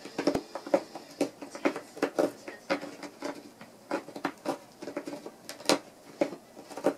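A run of short, irregular clicks and scratchy scrapes, a few a second, from a cat working at a box on the floor with its head down. The sharpest click comes near the end.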